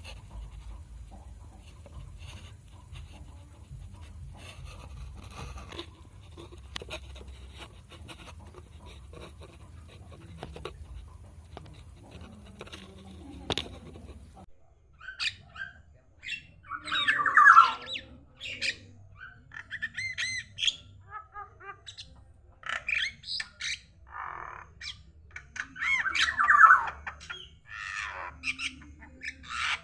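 Javan myna (jalak kebo) calling. First soft scattered clicks, then from about halfway a run of loud, harsh squawks and chattering calls.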